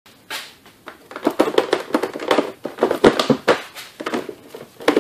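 Irregular clicks, knocks and rattles of gloved hands working at a car's plastic battery box in the engine bay.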